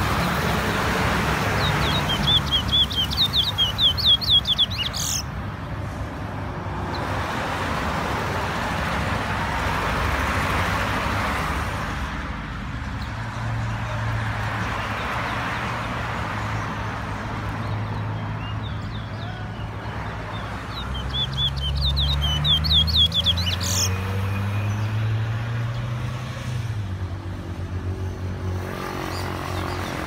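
A caged brown songbird sings twice, about two seconds in and again past twenty seconds: each song is a quick run of high trilled notes ending in a sharp upward whistle. A low engine hum runs underneath through the second half.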